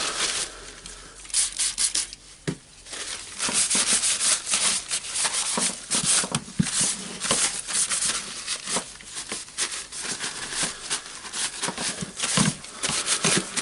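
A blue shop towel wiping and scrubbing the housing of a Hilti SF4000 drywall screw gun in rapid, irregular rubbing strokes.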